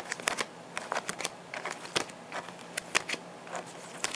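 Plastic-sleeved trading cards being flipped through by hand, one card slid from the front of the stack to the back, with quick irregular clicks and rustles of the sleeves against each other.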